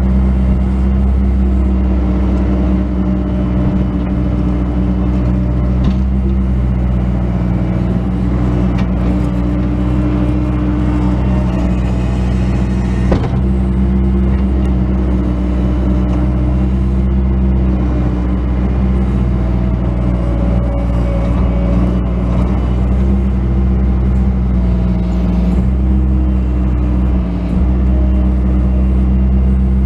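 Bobcat S185 skid steer loader's diesel engine running steadily, with higher tones that rise and fall as it works. A single sharp knock about 13 seconds in.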